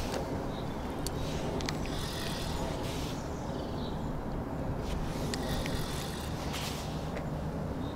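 Spinning reel being cranked in short spells while a hooked fish is played on a bent float rod, a whirring with a few light clicks, over a steady low rumble of wind on the microphone.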